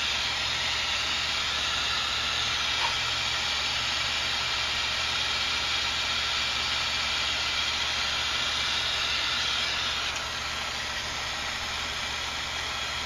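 Steady hiss over a low hum, with one small click about three seconds in; the higher part of the hiss drops away about ten seconds in.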